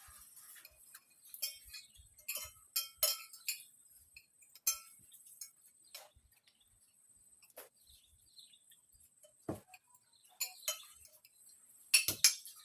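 Tableware clinking and knocking during a meal: scattered light clinks and clicks at irregular intervals, with a denser cluster near the end.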